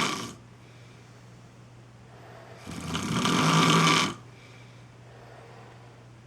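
A person snoring in deep sleep. The tail of one snore fades out just after the start, and one full snore of about a second and a half comes near the middle. A faint steady low hum fills the pauses.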